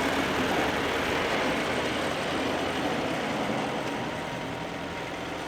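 An engine running steadily with a loud, dense mechanical noise, which eases off a little about four seconds in.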